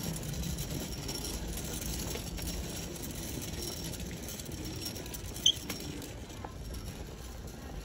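Metal-framed mobility aid rolling over a smooth tiled shop floor: a steady low rumble with a faint rattle, and one short sharp squeak about five and a half seconds in.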